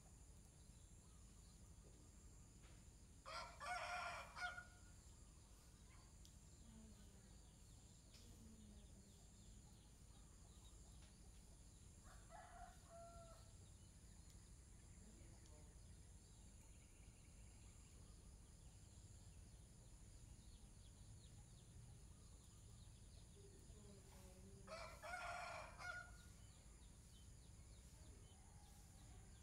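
A rooster crows twice, once a few seconds in and again near the end, with a shorter, fainter call between them. A faint, steady high-pitched hum runs underneath.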